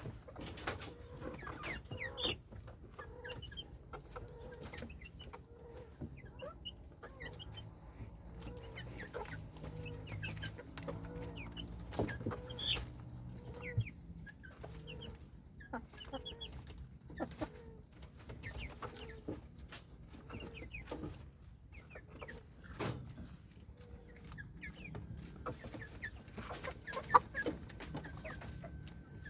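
Chickens clucking, with scattered clicks and knocks around them and one sharp, loud knock near the end.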